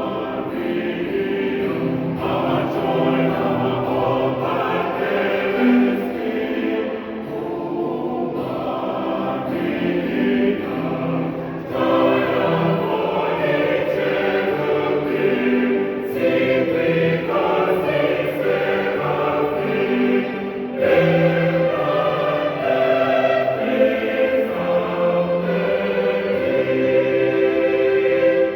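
Mixed church choir singing a hymn in several voice parts, in continuous phrases.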